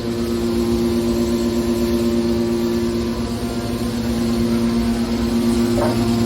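Scrap metal press baler's hydraulic power unit running with a steady droning hum, with a brief scrape near the end.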